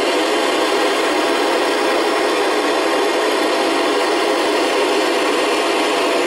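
FM radio receiver static: a loud, steady hiss with no voice in it, the ISS downlink signal lost in noise under weak reception.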